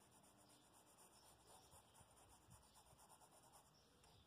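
Faint scratching and rubbing of a paintbrush on fabric as paint is blended in, barely above silence.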